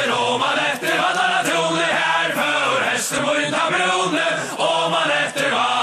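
Several male voices chanting a Faroese ballad melody together, with a steady low drone beneath: the chanted opening of a folk-metal song.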